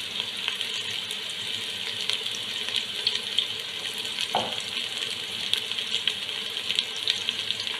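Sliced onions and curry and pandan leaves frying in hot oil in a rice cooker pan: a steady sizzle with small crackles and pops throughout.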